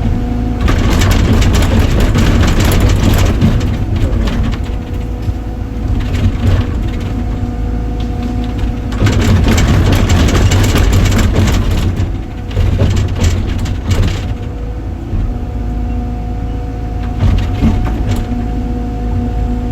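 Heavy machine's diesel engine running steadily, with two loud spells of grinding, crunching clatter about a second in and about nine seconds in.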